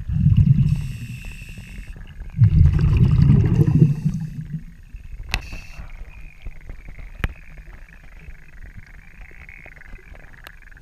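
Scuba diver breathing through an Apeks regulator underwater: two loud surges of exhaled bubbles rumbling past, one at the start and one about two and a half seconds in, each with a hiss, then a quieter stretch with two sharp clicks.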